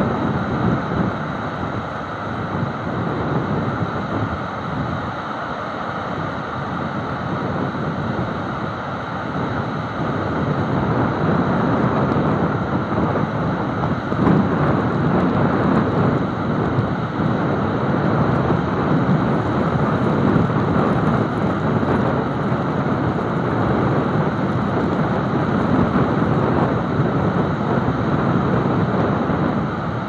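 Steady loud rushing of a large waterfall, Gullfoss on the Hvítá river, pouring into its gorge. It grows a little louder about ten seconds in.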